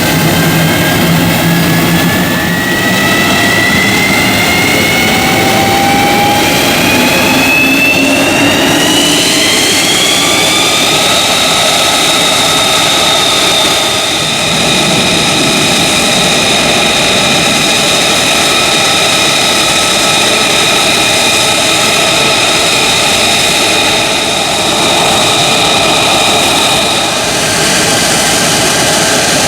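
F-35A Lightning II's Pratt & Whitney F135 turbofan running loud, its whine rising in pitch over the first ten seconds or so as the engine spools up, then holding steady.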